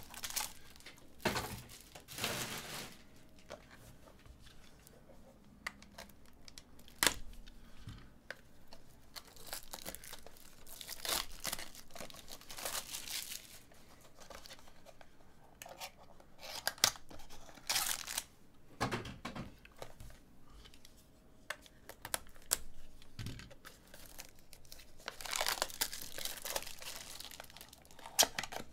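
Foil trading-card pack wrappers crinkling and tearing as packs are opened and handled, along with the rustle of a small cardboard card box being opened, in irregular bursts with quieter handling between.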